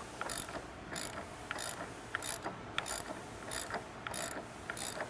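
Hand ratchet wrench clicking in a series of short back-and-forth strokes, working the locking nut off the top of a strut.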